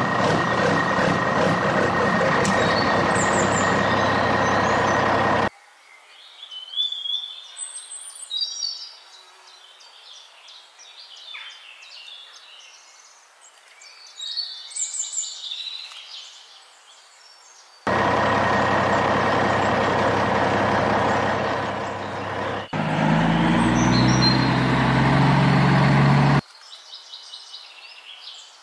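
Truck engine sound effect laid over the footage, running loud in stretches that cut in and out abruptly, with a lower-pitched, louder stretch a few seconds before the end. Birds chirp in the quieter gaps between.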